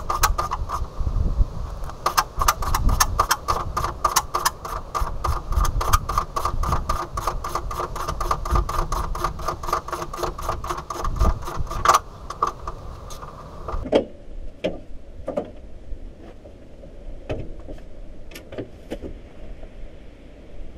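Ratchet wrench clicking rapidly and evenly, several clicks a second over a steady whine, as a bolt is run down under the hood. It stops about 14 seconds in, leaving a few scattered clicks and knocks.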